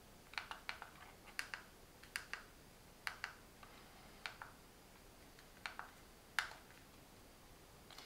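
Faint, sharp clicks of the buttons on a SofaBaton X1 universal remote being pressed as it navigates menus: about a dozen presses, some in quick pairs, at an uneven pace.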